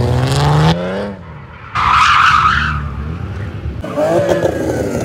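Drift cars sliding: an engine revs up with a rising tone and cuts off in the first second, a loud tyre squeal comes about two seconds in, and another rev with tyre squeal follows near the end.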